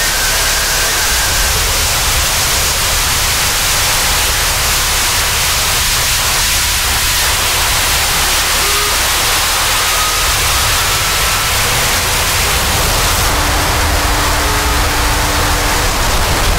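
Harsh electronic noise music: a loud, unbroken wall of static and hiss over a heavy low rumble, with short faint tones surfacing now and then.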